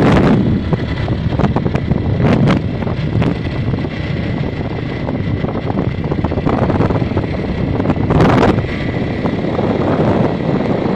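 Wind buffeting the microphone on a moving vehicle, over a steady rumble of engine and road noise, with a stronger gust about eight seconds in.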